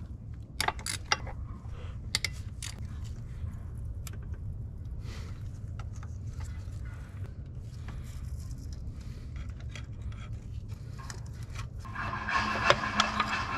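Hand ratchet with a 10 mm socket clicking in short runs and scraping as the water pump bolts of a Toyota 2.2-litre inline-four are loosened. A louder steady noise comes in near the end.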